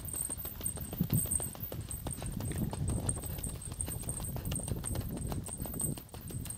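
Footsteps of a hiker walking steadily up a gently sloping road, a continuous run of short crunching steps over a low rumble.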